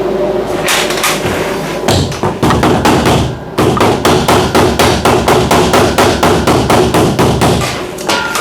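Hammer striking metal in quick repeated blows, about four to five a second, with a short pause about a third of the way in, over a steady machine hum.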